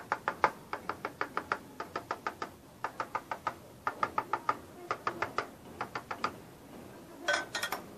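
A fork pricking raw puff-pastry rounds, its tines tapping through the dough onto a metal baking tray in quick runs of sharp clicks, one run per round with short pauses between. It is docking the pastry so that it will not puff up in the oven. A louder clatter comes near the end.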